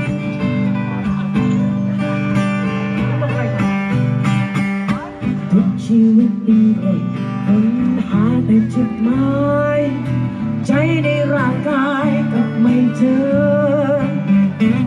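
Live acoustic music: acoustic guitars strumming and picking chords. About halfway through, a melody with vibrato comes in above them.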